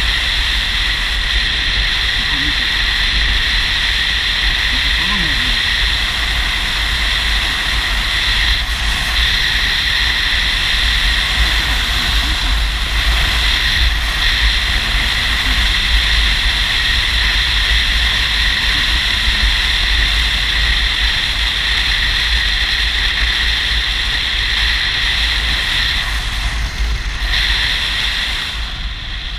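Steady wind rush and road noise from a touring motorcycle under way, with a heavy low rumble, heard through a microphone on the moving bike. It eases off slightly near the end.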